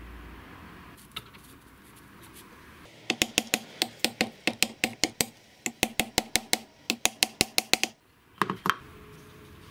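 Small hammer tapping metal handle pins through a knife's wooden handle scales: a quick run of light, ringing taps, about five a second, for roughly five seconds with a short pause midway. A couple of duller knocks follow near the end.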